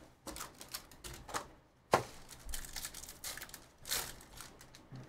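Foil wrapper of a Bowman University Chrome basketball card pack crinkling and crackling as it is torn open and handled, with one loud sharp crack about two seconds in.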